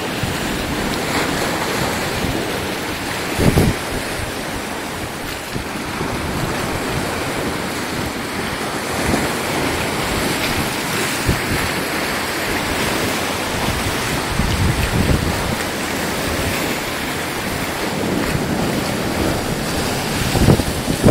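Steady rushing wind noise on the microphone, with irregular low buffeting thumps, the strongest about three and a half seconds in and again near the end.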